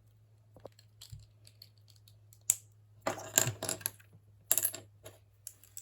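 Small plastic Lego pieces clicking and clattering as they are handled and pressed together while a minifigure is assembled, with a denser run of clatter about three seconds in.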